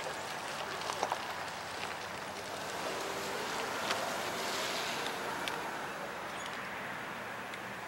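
Freight train rolling away in the distance: a steady hiss of wheels on rail, with a few faint clicks about a second in.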